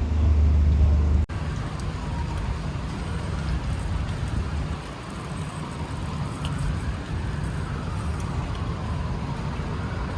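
Road traffic on a city street: a loud, low vehicle rumble that cuts off suddenly a little over a second in, then steadier traffic noise with a faint whine that slowly rises and falls in pitch.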